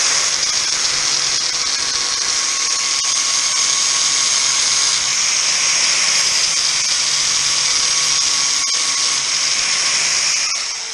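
Angle grinder with a flap disc grinding through the steel seam of a classic Mini's rear quarter panel, running steadily with a high hiss. It cuts off near the end.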